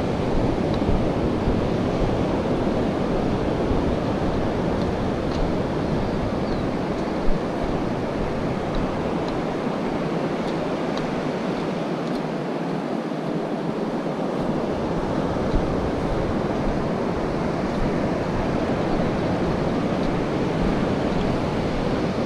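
Ocean surf breaking on a sandy beach, a steady wash of noise, with wind rumbling on the microphone.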